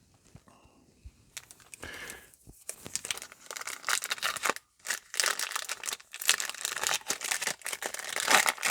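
A foil trading-card pack wrapper being crinkled and torn open: a dense crackling that starts about a second and a half in and grows louder.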